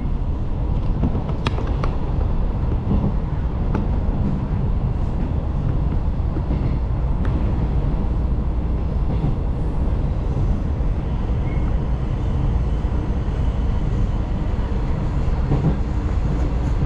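Taiwan Railways local train running: a steady low rumble, with a few faint clicks.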